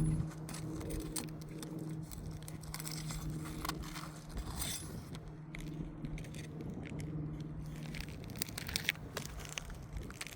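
Asphalt roof shingles being worked loose with a pry bar: irregular scraping, crackling and clicking as the seals break and nails pull up, over a steady low hum.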